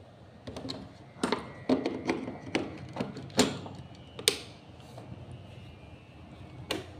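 Irregular clicks and light knocks of small objects being handled on a workbench for about four seconds, then a single sharp click near the end.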